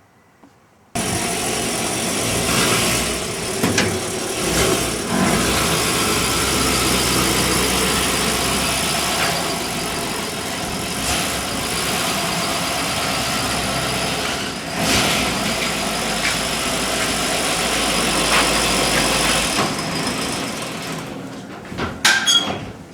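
A 1956 Chevrolet truck's engine running steadily. It cuts in suddenly about a second in and dies away near the end, with a few sharp clicks.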